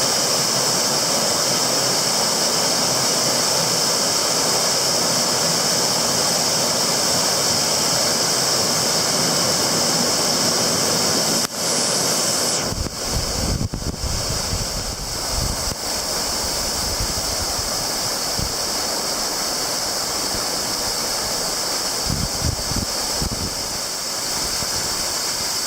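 Rain-swollen waterfall rushing in a steady loud hiss. About halfway through the sound shifts and an uneven low rumble joins it.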